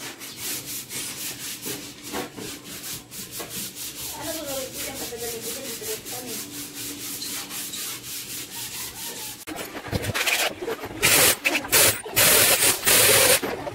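Rhythmic rubbing or scraping strokes, about four a second, followed after a cut by louder, harsh scraping bursts near the end.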